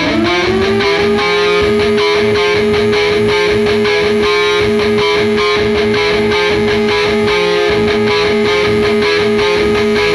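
Rock band playing with strummed electric guitars and drums. Over it a wailing tone rises in pitch over about the first second, then holds one steady note like a siren winding up.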